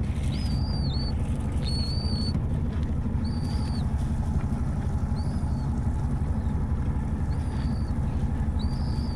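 A bird calling a short, high whistled note six times, roughly a second or so apart with a longer pause in the middle, over a steady low rumble.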